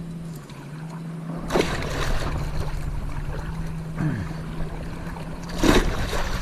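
Shallow sea water splashing and sloshing as a hooked giant trevally is played in close to the wading angler, with a loud splash near the end. A steady low hum runs underneath.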